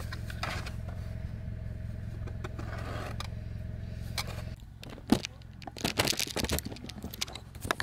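A car's engine running, heard as a low steady hum from inside the cabin, which cuts off about four and a half seconds in. After it come scattered clicks and rustles of handling.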